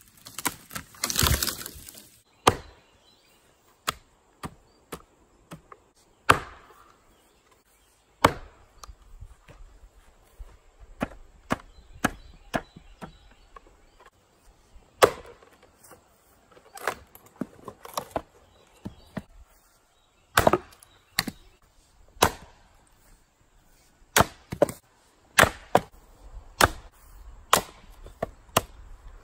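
An axe fitted with a field-made replacement handle chops and splits hard wood, with many sharp chopping blows at irregular intervals. There is a longer splintering crash about a second in, and wood cracks as pieces split apart on the block.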